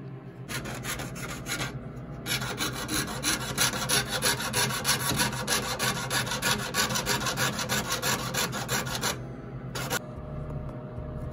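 Jeweller's saw cutting 24-gauge copper sheet on a wooden bench pin: rapid, even rasping strokes, several a second. They pause briefly about two seconds in, stop about nine seconds in, and one last stroke comes near the end.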